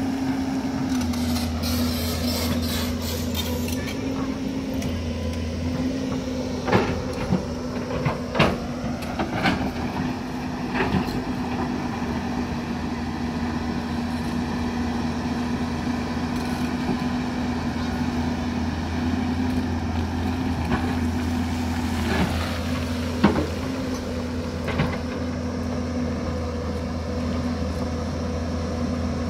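Hyundai crawler excavator's engine running steadily under load as it digs, with a few sharp knocks and scrapes of the bucket against rock and soil.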